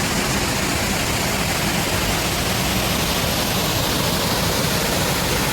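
Waterfall rushing in a steady, full roar, running high after heavy rain.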